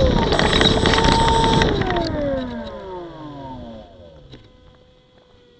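Electric motor and propeller of an E-flite P-51 Mustang RC model plane running with a steady whine and rush, then cut about two seconds in: the whine falls in pitch and fades as the propeller spins down to a stop around four seconds in.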